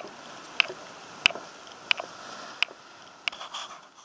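Footsteps on a wooden boardwalk, sharp and evenly spaced at about one and a half steps a second, over a faint steady hiss.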